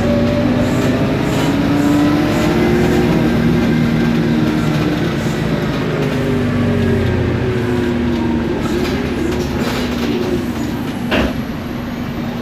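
Isobus City 1200 bus underway, heard from inside: the MAN D0836 LOH diesel and ZF Ecomat 6HP504C automatic gearbox drivetrain running, with a whine from the gearbox and differential whose pitch drifts slowly up and down with road speed over a low rumble. A single short knock comes near the end.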